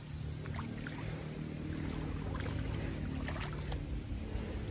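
Water sloshing, with small splashes and clicks, as a person wades and reaches into submerged bamboo debris in a shallow stream. Under it runs a low steady hum that fades about four seconds in.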